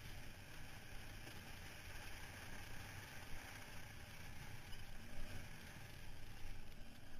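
ATV engine running steadily as the quad rides along a rough dirt trail, its rumble mixed with trail and wind noise on the mounted camera.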